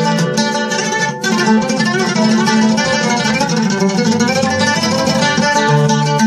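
Music: a plucked string instrument playing a quick, busy melody at a steady level.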